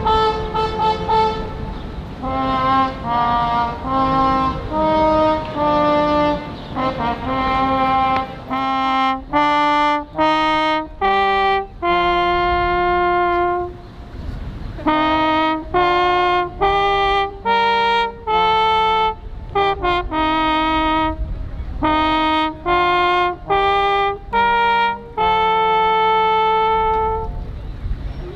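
A trumpet-like brass instrument plays a melody one note at a time, with short separated notes and a few held for a second or more.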